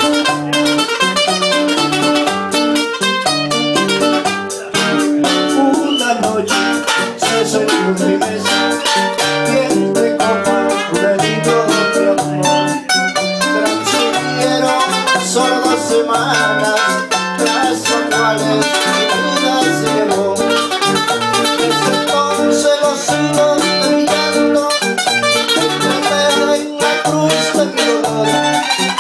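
Two acoustic guitars playing live: rapid picked notes over strummed chords and a repeating bass line.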